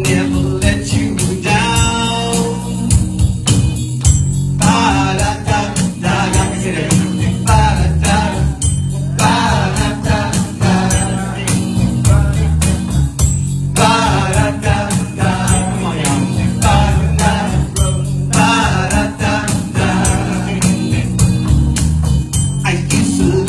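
Live gospel band music: a steady bass line and drums with a jingling tambourine, and wavering sung melody lines over them.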